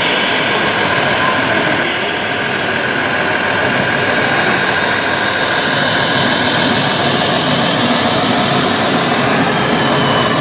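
Diesel engine sound running at idle from the sound module of a radio-controlled scale semi truck, over the steady din of a busy exhibition hall.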